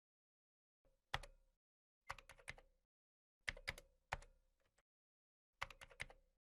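Faint, sharp clicks and taps in small clusters of one to four, spread a second or so apart.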